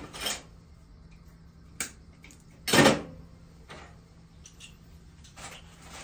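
Hand tools and small wiring parts being handled and set down: a few scattered clicks and metallic clinks, with one louder clatter about three seconds in.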